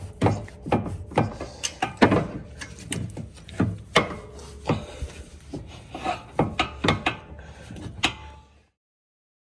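Irregular metal knocks, clicks and scraping as a seized sway-bar end link is pushed and wiggled loose from its mount, two or three knocks a second. The sound stops abruptly near the end.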